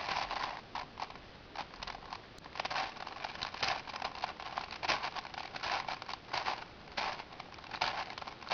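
V-Cube 7 being turned quickly by hand, its plastic layers giving a fast, irregular run of clicks and scrapes.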